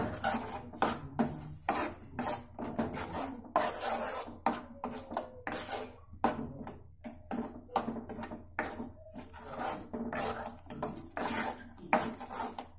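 Steel spoon stirring a thick onion-tomato paste around a nonstick pan, scraping the pan in quick, irregular strokes.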